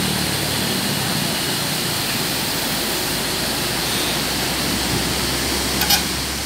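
Floodwater pouring over a concrete weir and churning below it: a steady rush of water. A brief sharp click sounds near the end.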